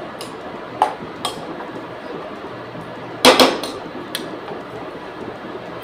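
Stainless-steel cooking pot and its lid knocking and clinking as the pot is handled on the stove: two light clicks, a cluster of sharp metal knocks about three seconds in, then one more light knock.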